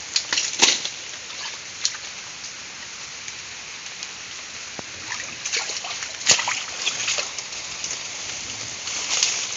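Feet wading through shallow muddy water: irregular splashes and sloshing, with sharp sounds loudest about half a second in and again just past six seconds.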